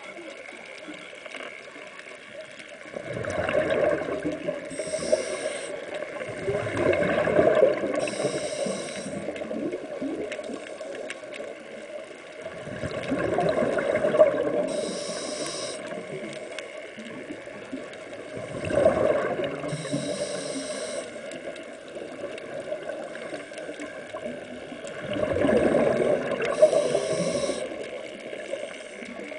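Scuba breathing through a regulator underwater: exhaled bubbles rumble and gurgle every five or six seconds, each followed by a short hiss of the demand valve on the inhale.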